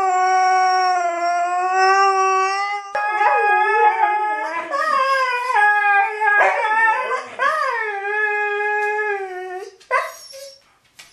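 Siberian huskies howling. One long, steady howl is joined about three seconds in by a second voice, and the overlapping howls rise and fall in pitch. A short, sharp call comes about ten seconds in, and the howling stops just after.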